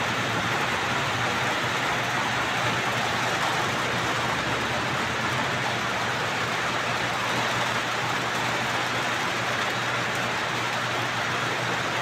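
Heavy rain falling steadily: an even, unbroken hiss.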